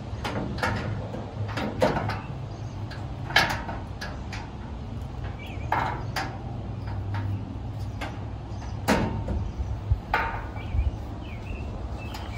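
Sheet-steel panels of a gas grill's cabinet knocking and clicking as they are fitted and snapped together: a string of sharp knocks, the loudest about three and a half and nine seconds in, over a low steady hum.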